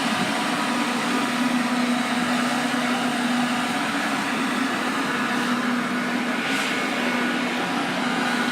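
A steady mechanical hum with one low tone over an even hiss, holding level throughout.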